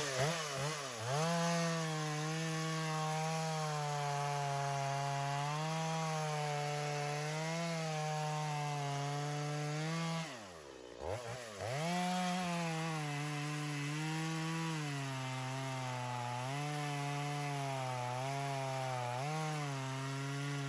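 Stihl MS250 two-stroke chainsaw running at full throttle while bucking a cherry log into firewood. Its pitch sags and recovers as the chain bites into the wood. About ten seconds in the throttle is let off, the engine winds down briefly, then it revs back up and goes on cutting.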